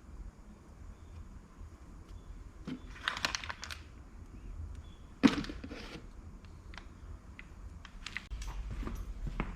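Workshop handling noises from engine assembly work: scattered metallic clicks and scrapes, with one sharp knock about five seconds in and more small clicks near the end.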